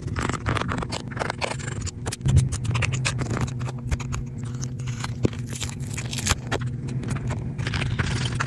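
Small screwdriver and pry tool clicking and scraping against the metal shields, screws and frame of an opened iPhone as it is taken apart: a long run of sharp little clicks and scrapes, the loudest about two and a half seconds in, over a steady low hum.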